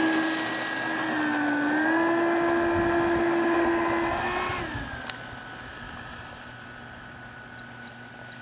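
Electric ducted fan of a SAPAC T-45 Goshawk RC jet running with a high, steady whine that dips slightly and rises again, then drops in pitch and fades about halfway through.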